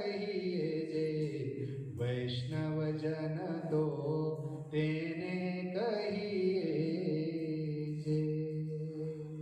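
A man's solo voice singing a Gujarati devotional bhajan, drawing the closing line out in long held notes that bend between pitches.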